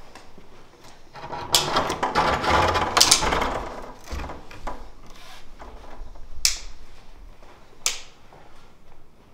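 Close handling and movement noises: rustling and shuffling with low knocks for a few seconds, then several sharp clicks spaced a second or more apart.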